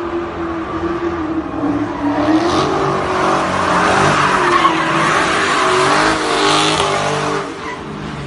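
A car's engine revving up and down while its tyres squeal and skid through a smoky donut. The tyre noise builds from about two seconds in and eases off near the end.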